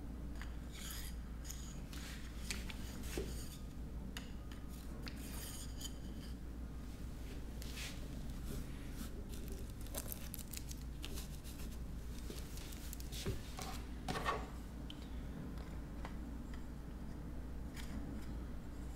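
Light clicks, scrapes and rustles of small plastic parts being handled, over a steady low hum.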